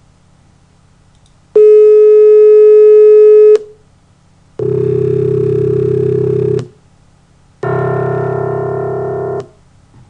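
Computer-synthesized tones: one steady pure tone, a single partial sampled from a piano's C1 note, held for about two seconds. Then two low buzzy two-second tones, each made of many partials. The second of these is the sum of pure tones built so far to replicate the piano's C1 note, and it fades slightly.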